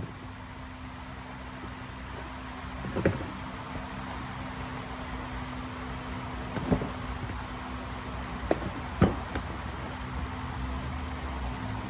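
A few sharp metallic clinks and knocks as turbocharger parts (compressor wheel, backplate and centre section) are handled and set against each other: one about three seconds in, one near the middle, then two close together a little later, over a steady low hum.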